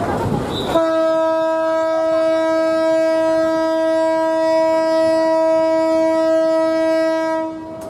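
Locomotive horn sounding one long, steady, single-pitched blast of about seven seconds as the trains move off, beginning about a second in and cutting off near the end.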